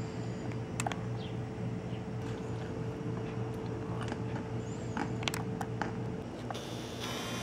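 A steady low hum with faint short bird chirps and scattered clicks over it; about seven seconds in, a camera's zoom motor starts to whir.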